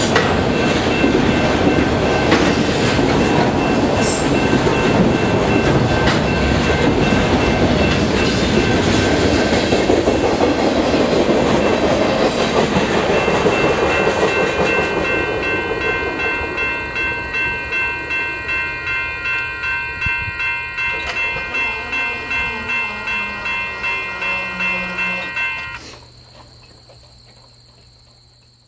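The tail of a long freight train of autorack cars rolling past on jointed rail, wheels rumbling and clattering. From about halfway the train recedes into a rhythmic clickety-clack of about two beats a second, which drops away sharply near the end, leaving faint crickets.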